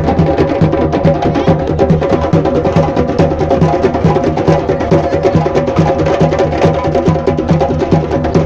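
Drum circle: many hand drums played together in a dense, fast rhythm.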